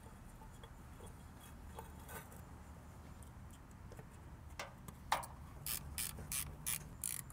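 Hand ratchet wrench clicking as a bolt holding a cover under the engine is run in: a couple of clicks about halfway, then quick strokes about three clicks a second near the end.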